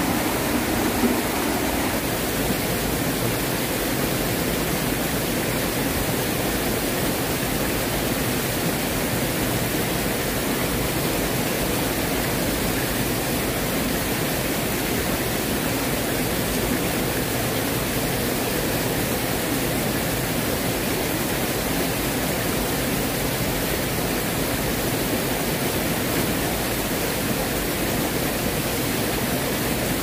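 Mountain stream swollen after rain, its water rushing steadily over rocks, loud and close.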